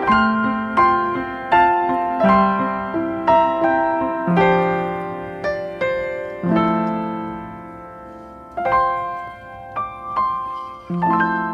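Background piano music: a slow melody of struck notes and chords, each note fading after it is played.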